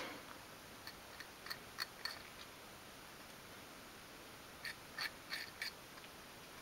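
Faint, light clicks and taps of a wooden cocktail stick against thin wood and card as glue is spread on a small wooden piece: a few around a second in and a quick cluster about two-thirds of the way through.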